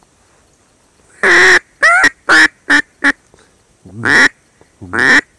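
Loud duck quacking: a quick run of five quacks, each shorter than the last, then single quacks about a second apart.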